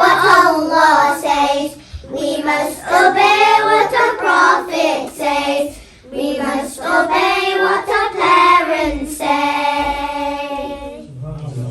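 A group of young children singing a song together in phrases, ending on a long held note near the end.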